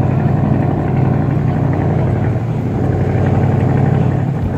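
Motorboat engine running steadily, a constant low hum.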